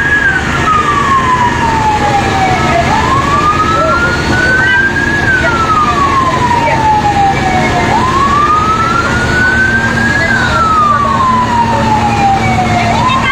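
Fire truck siren wailing slowly up and down, about five seconds to each rise and fall, with three peaks. Under it are a steady high tone and a low rumble.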